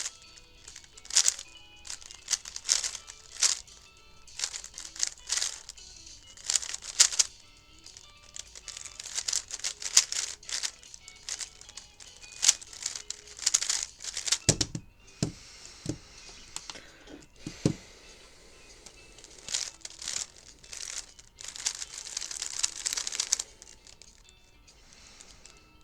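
3x3 speedcube being turned fast, bursts of plastic clicking and clacking as the layers spin, with short pauses between bursts and a few low thumps a little past the middle. Music plays faintly underneath.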